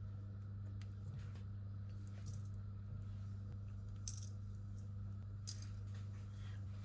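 A few scattered light clicks and taps of small hard objects, sharpest about four and five and a half seconds in, over a steady low hum.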